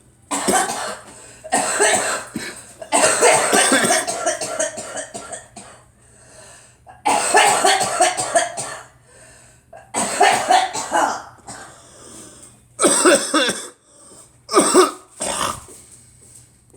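A person coughing in repeated fits: about seven separate bouts of coughing with short pauses between, the longest a drawn-out fit of several seconds near the start.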